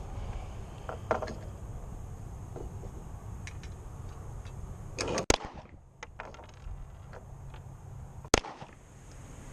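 Two pistol shots from a Smith & Wesson M&P 40C about three seconds apart, fired while zeroing its red-dot sight. Each shot is a sharp crack that briefly drowns everything else.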